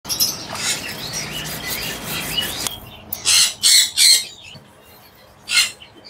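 A flock of budgies chattering and chirping, cut off abruptly after about two and a half seconds. Then come three short harsh rasping sounds in quick succession, and one more near the end.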